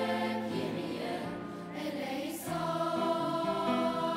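A choir of girls and young women singing held chords in treble voices, growing louder about two and a half seconds in as a new chord begins.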